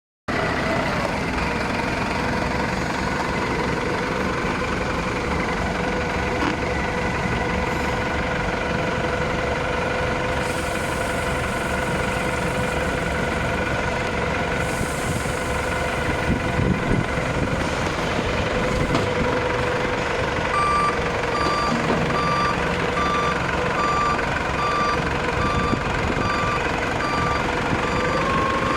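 Wheel loader's diesel engine running steadily with a concrete mixer attachment. About two-thirds of the way in, a reversing alarm starts beeping at a regular pace, a little under two beeps a second, the sign that the loader is backing up, and stops shortly before the end.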